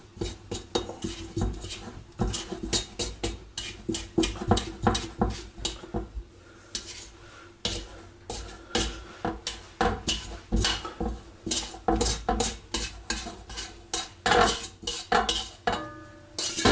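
A spatula scraping and knocking around the inside of a stainless steel mixing bowl in quick, irregular strokes, working risen bread dough loose from the bowl's sides so that it can be turned out.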